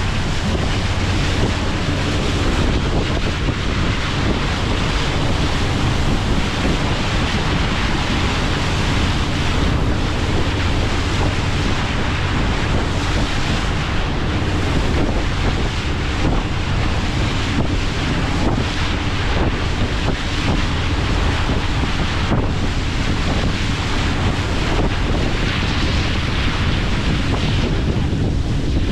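Wind buffeting the microphone aboard a moving sightseeing cruise boat, over the steady drone of the boat's engines and the rush of water along the hull.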